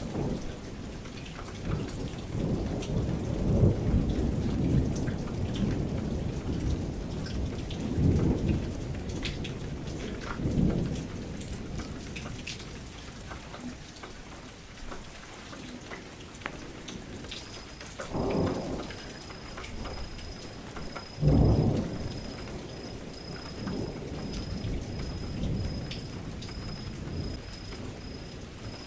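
Thunderstorm sound effect: steady rain with low rolling thunder, and two louder claps of thunder in the second half.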